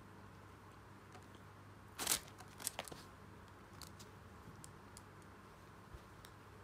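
A cat dropping onto a fabric cushion: a short rustling scuff about two seconds in, then a few light clicks and scratches as it shifts on the bedding, with fainter ticks after. A low steady hum lies underneath.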